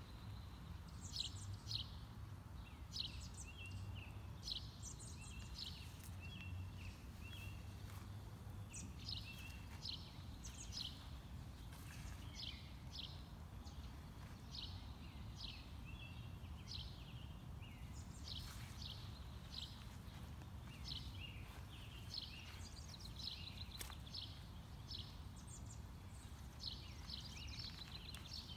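Small birds chirping in many short, high calls throughout, over a low, steady background hum.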